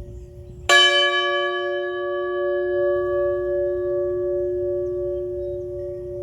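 A bell struck once, a little under a second in, over the hum of an earlier stroke still sounding. It rings on in a long, slowly fading hum whose higher tones die away first, with a slight wavering in the hum.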